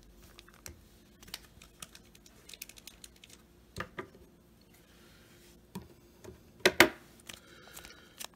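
Trading cards and a foil card pack being handled on a table: scattered light clicks and taps, with a louder crinkle of the pack wrapper about seven seconds in.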